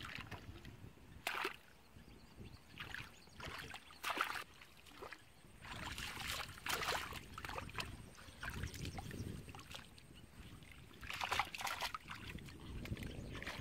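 Hands groping through shallow muddy water, splashing in irregular bursts about every one to two seconds.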